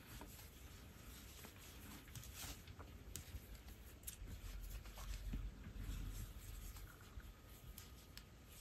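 Faint scratchy rustle and scattered soft ticks of a metal crochet hook drawing yarn through stitches, as single crochet is worked along a row.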